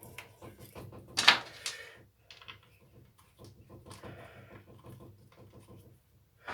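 Small parts being handled and fitted during a strimmer repair: scattered light clicks and rustles, with one loud scraping clatter about a second in.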